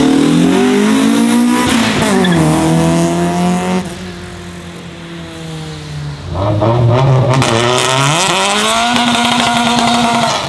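Honda Civic engines revving hard under full-throttle acceleration. An EG-generation Civic hatchback pulls away, shifts up about two seconds in and climbs through the revs again. After a drop in level a second Civic revs up and holds steady at high revs near the end.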